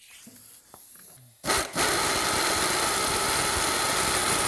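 After a few faint handling clicks, a pneumatic air wrench starts about a second and a half in and runs steadily, spinning a priming tool in the distributor hole that drives the engine's oil pump. This is the oil system being primed: oil pressure is building before the distributor goes in.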